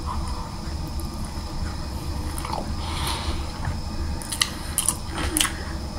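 Biting into and chewing a mouthful of a Subway sub sandwich close to the microphone, with a few short wet mouth clicks in the second half.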